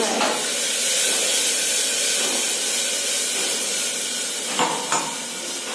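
Onions and ginger-garlic-tomato masala paste sizzling in hot oil in an open pressure cooker, a steady hiss. Two light knocks of the stirring spoon against the pot a little under five seconds in.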